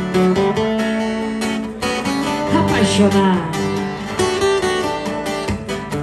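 Two acoustic guitars strummed and picked live in an instrumental passage, the chords held and changing.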